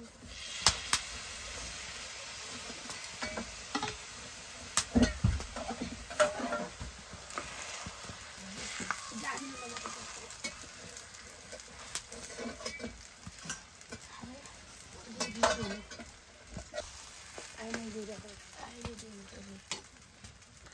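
Noodles sizzling in a metal wok over a wood fire as water is poured in, with a metal ladle stirring and scraping the pan. Sharp knocks of the ladle against the wok now and then, the loudest about five seconds in and again about fifteen seconds in.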